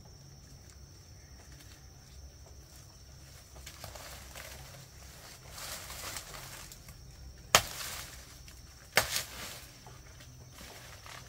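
Two sharp knocks about a second and a half apart, the second trailing off briefly, over faint rustling.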